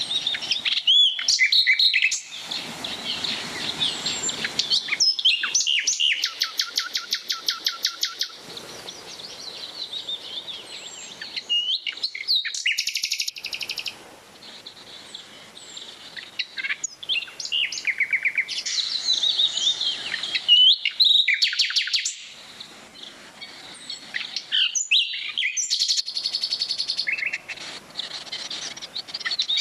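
Several songbirds singing and calling in the trees, a busy mix of high chirps and whistles broken by rapid trills.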